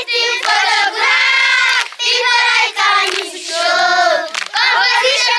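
A group of children singing together in unison and clapping their hands.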